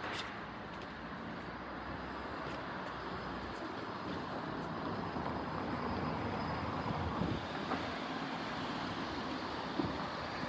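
JR electric commuter train running along the line past a level crossing: a steady rushing rumble that slowly grows louder.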